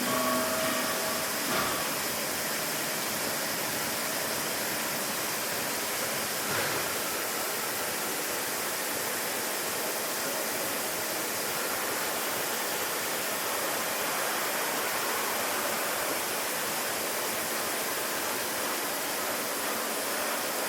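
Steady, even hiss from a powered-up DMG MORI CLX 350 CNC lathe, with a brief whine in the first second as the axes are jogged.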